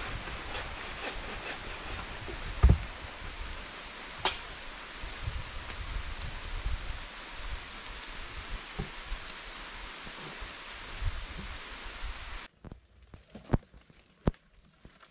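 Steady outdoor hiss with low thumps, broken by one loud knock about three seconds in. Near the end the hiss cuts off abruptly and a few sharp wooden knocks follow as logs in a log wall are handled.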